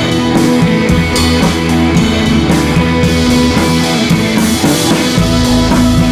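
Background music, loud and steady, with a deeper bass line coming in about five seconds in.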